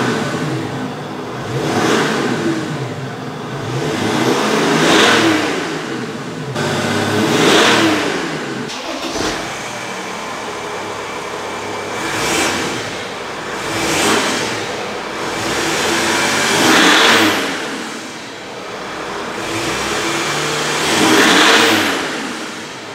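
2005 Mercedes E320 CDI turbo diesel inline-six heard at the tailpipe, free-revved in a few short blips. The first part is with the stock downpipe and catalytic converter; after a cut about nine seconds in, it is with a catless downpipe. Even without the cat, the exhaust is still so quiet through the mufflers.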